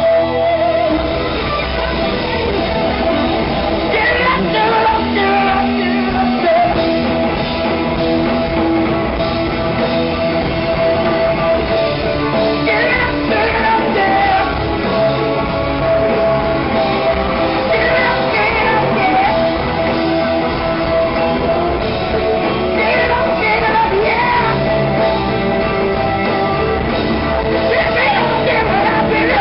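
A live band playing loudly: a male lead singer with phrases coming and going over electric guitar, keyboards and drums.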